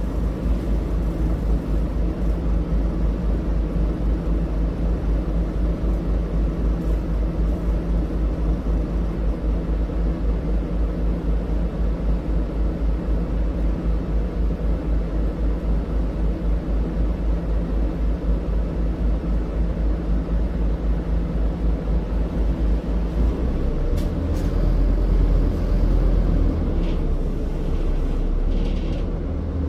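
Scania Citywide articulated city bus's diesel engine heard from inside the passenger cabin, running with a steady low throb. About 24 seconds in, the low rumble changes and grows louder for a few seconds.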